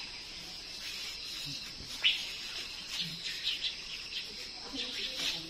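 Steady insect chorus, a high continuous drone, with scattered clicks and knocks, the sharpest about two seconds in.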